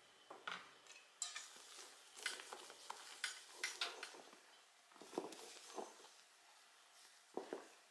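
Wooden spatula folding meringue into batter in a stainless steel bowl: irregular scrapes and light taps of the spatula against the metal, with a few fuller knocks about five seconds in and near the end.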